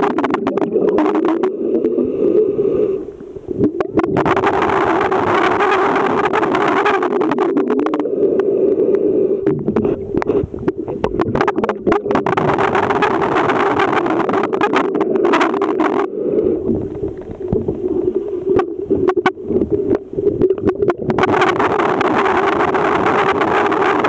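Underwater sound in a swimming pool, picked up by a submerged camera. There is a steady low hum, with spells of rushing noise a few seconds long that come and go, and scattered handling clicks.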